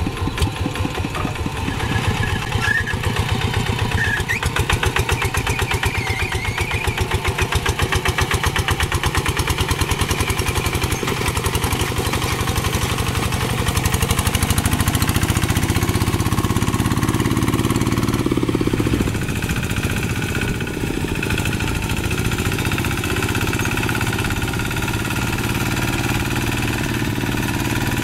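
Kubota single-cylinder diesel engine of a two-wheel hand tractor chugging steadily under load as it pulls a rake through paddy mud. Its speed shifts about halfway through.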